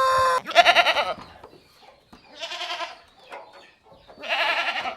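Bleating livestock: a long held call ends just after the start, followed by three short bleats about two seconds apart.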